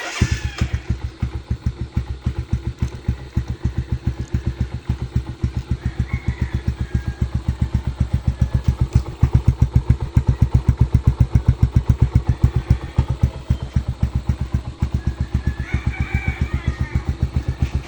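Kawasaki Rouser LS135 single-cylinder four-stroke engine idling through a 51mm Akrapovic slant-type aftermarket muffler, a steady train of evenly spaced exhaust pulses.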